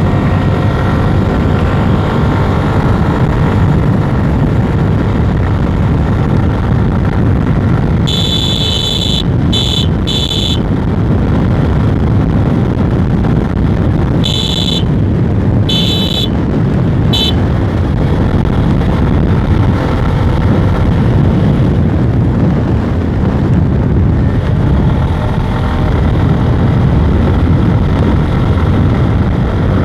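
Suzuki Gixxer single-cylinder motorcycle being ridden at speed, its engine running under steady throttle with heavy wind rush on the microphone. Two short runs of high-pitched beeps cut in, about eight and fourteen seconds in.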